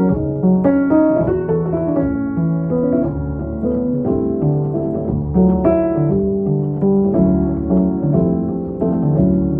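Instrumental music led by keyboard chords, with a run of held, pitched notes and no singing.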